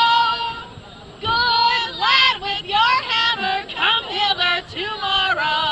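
Women singing without instruments: a long held note at the start, a short pause about a second in, then more sung phrases with sliding pitch.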